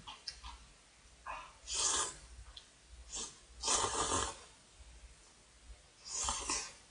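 Thick instant ramen noodles being slurped from a bowl with chopsticks: three slurps about two seconds apart, the middle one the longest and loudest, with faint clicks between.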